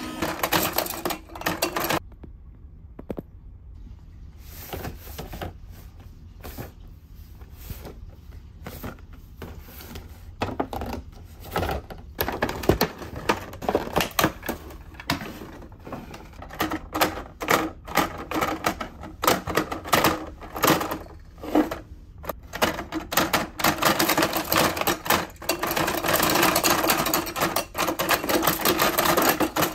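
Hard plastic toys being handled: a long run of clicks, clacks and knocks, with crinkling of a clear plastic bag as packaging is opened. In the last few seconds a dense, rapid clatter as the two plunger buttons of a Minion battle toy are hammered, its spring-mounted heads and plastic hammers knocking.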